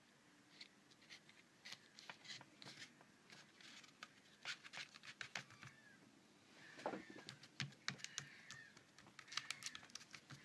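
Faint, irregular small clicks and taps as fingers handle the inside of an opened iPad, pressing its adhesive tape back down over the battery and board.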